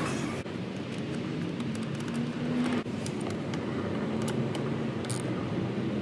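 A steady low rumble like passing road traffic, with a few light metallic clicks of a socket ratchet turning a bolt on a plastic body panel.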